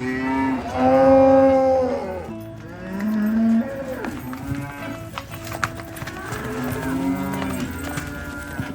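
Dairy cows mooing. A long, loud moo fills the first two seconds, a shorter, lower moo comes about three seconds in, and another long moo comes near the end.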